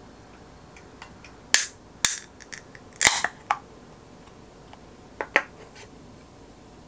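A Heineken beer can being cracked open: sharp pops of the pull tab, each with a short hiss of escaping gas, among a few small metallic clicks. Near the end come two light knocks as the can is set down on a wooden tray.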